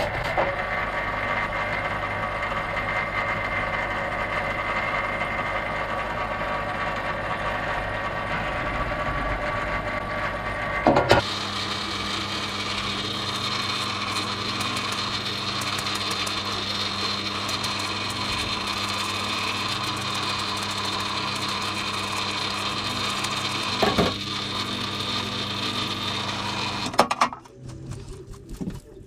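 Parts washer's pump running steadily, pushing cleaning fluid through the flow-through brush as a metal bicycle pedal is scrubbed. The sound changes about eleven seconds in, there are short knocks then and again later, and the pump cuts off a couple of seconds before the end.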